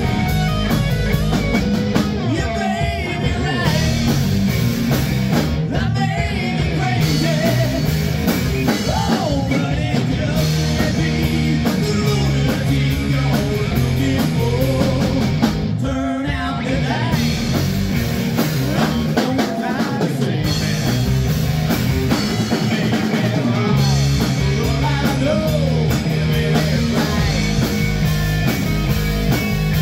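Rock band playing live: distorted electric guitars over a drum kit and a steady low bass line, with a man singing.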